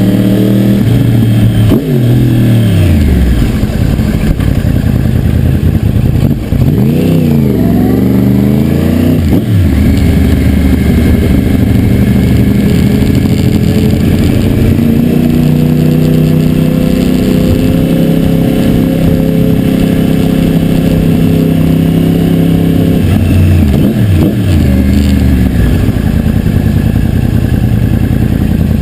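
2009 Yamaha R1's crossplane inline-four engine on a slow ride, heard close up from the bike. Its revs fall in the first few seconds, rise and fall again about seven to nine seconds in, hold steady through the middle, then drop to a low steady run in the last few seconds.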